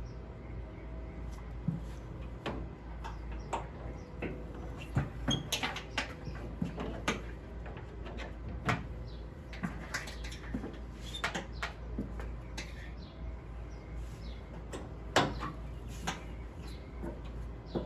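Irregular clicks and clacks of a stretchy cargo net's metal and plastic hooks being handled and attached around a pickup truck bed, the loudest knock about 15 seconds in, over a steady low hum.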